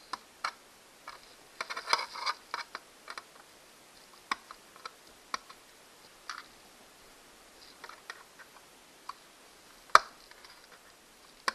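A small hand tool picking and prying at the stuck keyboard rivets in a MacBook Air's top case: irregular light clicks and short scratching, with a sharper click about ten seconds in.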